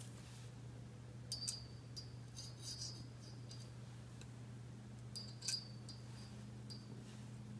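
Faint clicks and light metallic clinks of a steel feeler gauge's blades being fanned out and slipped into a piston ring's end gap in the cylinder bore, in two short clusters, about a second in and again about five seconds in. A low steady hum runs underneath.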